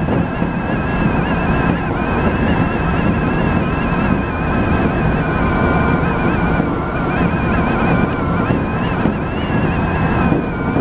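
Refurbished Odakyu 1000 series electric train running along the line, heard from just behind the driver's cab: a steady rumble of wheels on rails with a faint high whine that wavers slightly in pitch.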